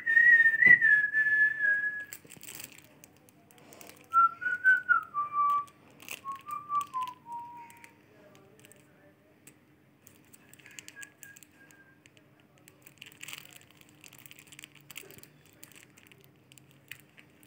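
A person whistling a few notes: one held note at the start, then, after a pause, two short phrases that slide downward. After that there is only faint crinkling of a thin plastic wrapper being handled.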